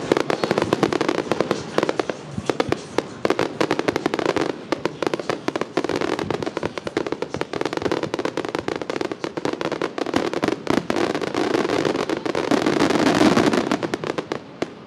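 Starmine fireworks barrage: a dense, rapid string of bangs and crackling shell bursts that builds to its loudest near the end, then stops suddenly.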